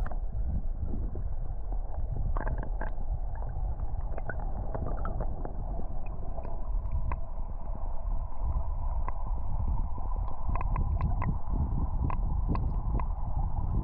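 Creek water running with scattered splashes and drips, over a low rumble of wind on the microphone.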